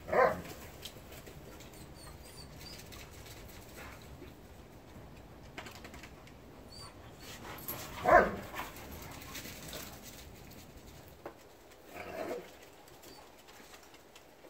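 A dog barking: three short barks, one right at the start, the loudest about eight seconds in and a softer one about twelve seconds in.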